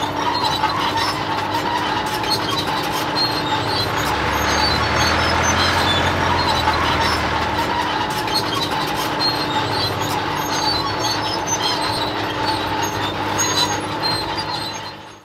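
Heavy vehicle machinery running: a loud, steady mechanical noise with a constant hum and many short high ticks over it, heavier in the low end around the middle, cutting off abruptly at the end.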